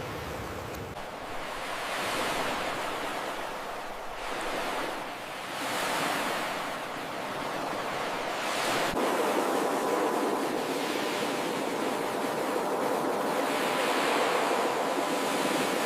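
Ocean surf: waves breaking and washing in as a steady wash of noise that swells and ebbs every few seconds.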